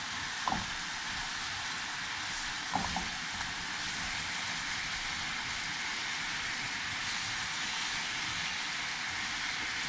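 Quail breasts sizzling in a pan of brandy glaze as it reduces, a steady hiss. Two light taps of tongs against the pan come about half a second and about three seconds in.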